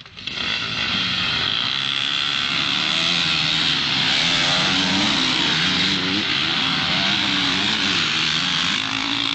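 A pack of motocross dirt bikes starting a race together: many engines revving hard and accelerating away at once, their pitches rising and falling over one another. The sound comes in suddenly at the start and then holds loud and steady.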